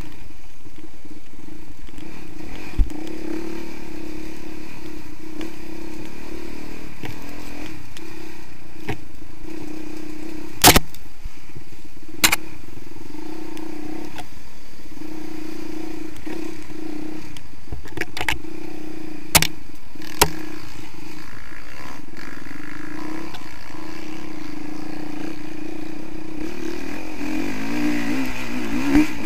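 Honda CRF450R dirt bike's single-cylinder four-stroke engine running steadily as it is ridden along the trail, with several sharp knocks in the middle. Near the end the engine note wavers up and down as the throttle is worked on a hill climb.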